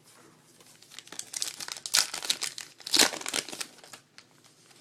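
A trading-card pack wrapper being torn open and crinkled: a run of crackling with two louder rips partway through.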